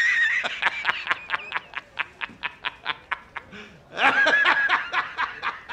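A man laughing hard. It opens with a long, high-pitched held shriek, goes on as a fast run of short 'ha' bursts at about four a second, and swells into a second high shriek about four seconds in.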